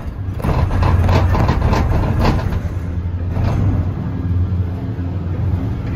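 Detachable gondola cabin of the Emirates Air Line cable car rolling slowly through its terminal station, heard from inside the cabin: a steady low rumble, with a run of rattling and clattering over the first three seconds or so as the hanger and grip run over the station's drive wheels.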